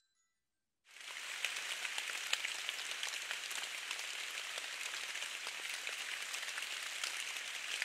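Steady patter of rain in a snowy forest, made of many small drop ticks over an even hiss, starting about a second in after a short silence.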